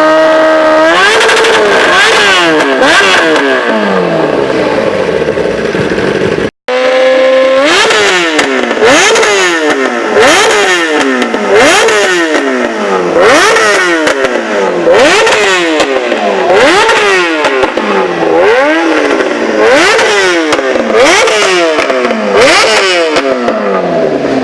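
Kawasaki ZX-10R's inline-four engine revving through an SC Project aftermarket exhaust, in quick repeated throttle blips. Each rev rises sharply and falls back, about one every second and a half. The sound cuts out briefly about six and a half seconds in.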